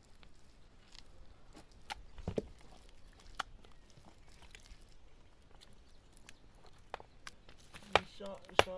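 Scattered light knocks and clicks, with a sharper knock about two and a half seconds in and another a second later.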